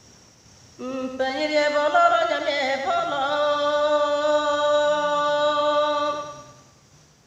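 A woman singing a traditional Galo chant unaccompanied, one voice: a single long phrase that starts about a second in, holds long steady notes with a slight waver, and fades out near the end.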